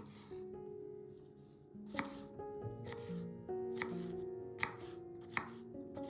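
Kitchen knife chopping on a cutting board in a handful of separate, unhurried strokes, over background music.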